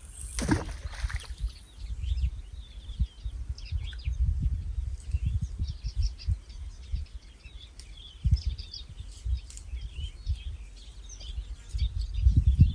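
Small birds chirping and singing over a gusty low rumble of wind on the microphone, with a short thump about half a second in.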